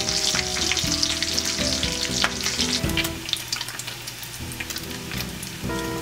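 Bacon sizzling in a cast iron skillet, a dense crackle of frying fat with frequent sharp pops. The strips are nearly crisp.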